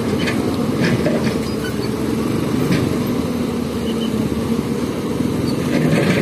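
Several motorcycle engines running at low speed in a steady rumble as the bikes ride slowly over rough, rocky ground.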